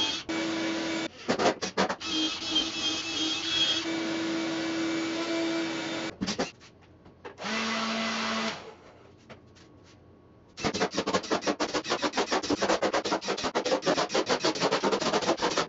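Cordless drill/driver spinning screws out of an MDF spoil board in runs of a few seconds, with a short lower-pitched run about halfway. For the last five seconds, a dense, rapid run of clicks.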